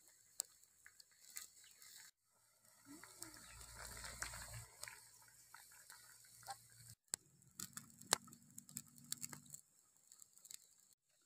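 Water at a rolling boil bubbling in a pot over a wood fire, with scattered crackling clicks from the burning wood. The sound cuts out briefly twice.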